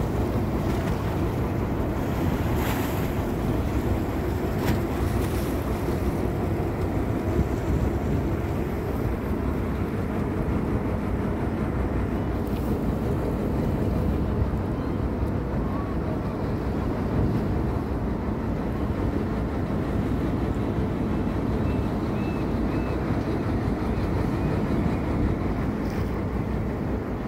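A boat under way on open sea: wind buffeting the microphone and water rushing past the hull, over the steady low drone of the boat's motor. A few brief higher hisses stand out.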